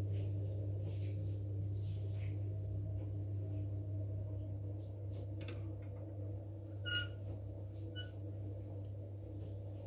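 A steady low hum, with faint scattered ticks and two brief high pings about seven and eight seconds in.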